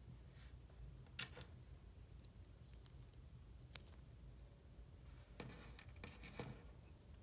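Faint handling noises of small objects: a sharp click about a second in, another near the middle, and a few light scrapes and rustles near the end, over a steady low hum.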